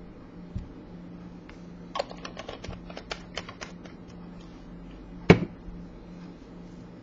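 A bottle of alcohol and its cap being handled on a desk: a light knock under a second in, a quick run of small clicks and taps from about two seconds in, and one sharp knock just after five seconds, over a steady low hum.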